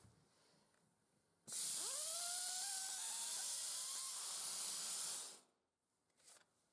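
pro clima Aerofix compressed-air spray gun spraying liquid sealant for about four seconds: a loud, steady hiss with a whistling tone that slides up as the spray starts, then holds. It is running at full flow from a freshly loaded foil pack.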